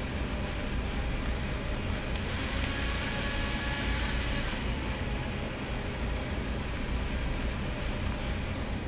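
Commercial countertop blender running steadily, whirring as it blends a fruit smoothie, with a brighter whine for a couple of seconds near the middle.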